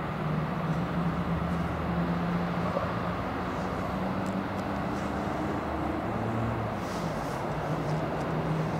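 Steady distant vehicle rumble with a low, even hum, and no train passing close by.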